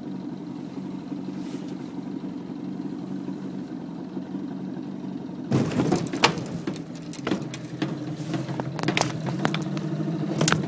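Motorboat engine running steadily at low revs, with a series of knocks and clatters from things being handled in the boat from about halfway.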